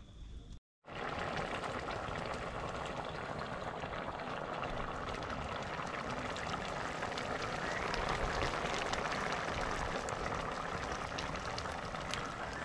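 Pot of curry goat boiling hard, a steady bubbling hiss with small crackles, starting about a second in.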